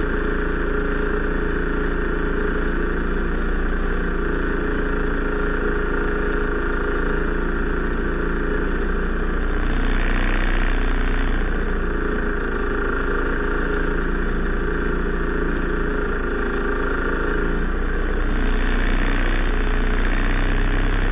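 Small engine idling steadily, growing a little louder for a couple of seconds about halfway through and again near the end.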